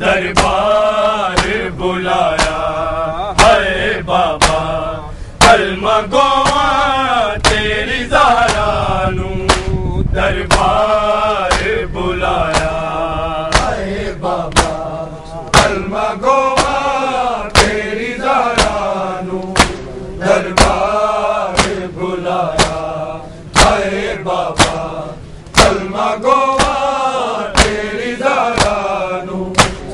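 Noha, a Shia mourning lament, chanted by a group of male reciters in long wavering phrases, over a steady beat of sharp slaps from bare-chested mourners beating their chests in matam.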